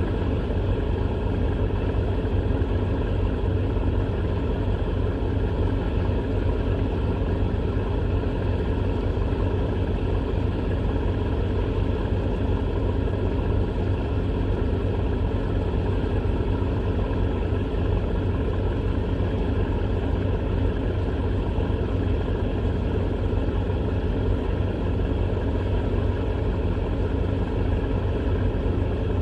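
Steady low rumble with a constant hum, like a motor running at an even speed.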